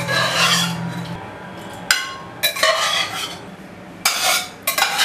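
A spoon scraping and clinking against the inside of a pressure cooker as a thick curry is spooned out into a serving dish. There are several short scrapes, the loudest about two seconds in and near the end.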